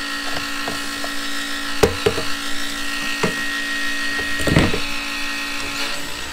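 A small electric fuel pump whining steadily while a tractor is fuelled, with several clicks and knocks as the filler cap is taken off and the nozzle is pushed into the filler neck. A louder clatter comes about four and a half seconds in.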